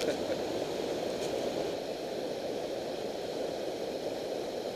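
Steady rushing of river water pouring over a low dam.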